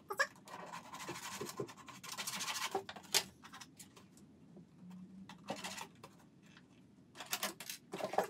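Stiff plastic scraping and rubbing as a clear plastic tub is pushed and worked down into a plastic milk bottle, with a sharp click about three seconds in. Near the end come a few short scratches of a knife on the bottle's plastic.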